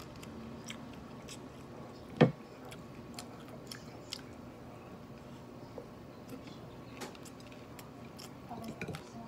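Close-up chewing and small mouth clicks of someone eating rice and fried pork backbone by hand, with one loud sharp knock about two seconds in.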